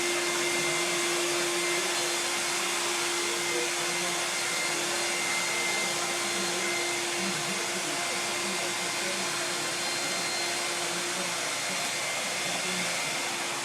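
Vacuum cleaner running steadily: an even rush of air with a steady hum under it.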